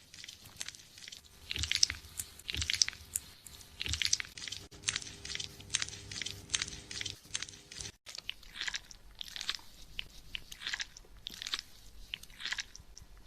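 Fingers scrubbing a shampoo-lathered scalp: a run of short, scratchy rubbing strokes, a couple a second, the lather crackling under the hands.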